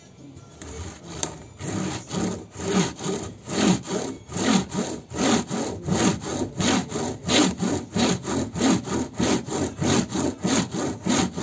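A bamboo mat rolled back and forth by hand over wet natural fibres to felt them into dreadlocks: rhythmic wooden rubbing and clattering strokes, about two a second, faint at first and building within the first couple of seconds.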